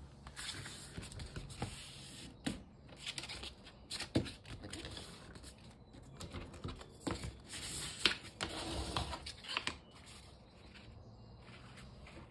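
Paper plate rustling and scraping as it is folded, pressed flat by hand and creased, then opened out. A run of louder rubbing strokes falls about seven to ten seconds in.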